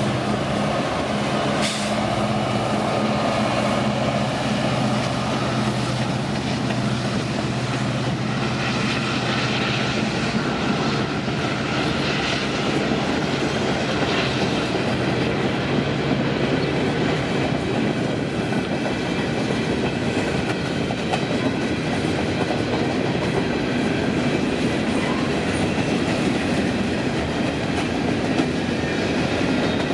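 Diesel freight locomotives pulling under power: a steady engine drone for the first several seconds, giving way to the rolling clatter of loaded coal cars passing, their wheels clicking rhythmically over the rail joints.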